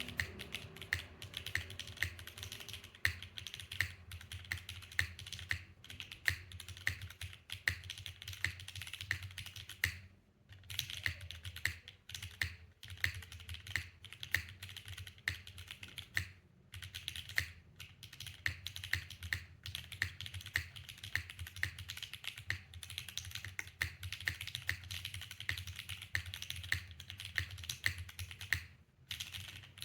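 Steady typing on a custom F1-8x v2 mechanical keyboard with Gateron Summertime linear switches, GMK Shanshui keycaps and a polycarbonate plate in a gasket O-ring mount with no foam: a fast run of key clicks. It pauses briefly about ten seconds in, again about sixteen seconds in, and near the end.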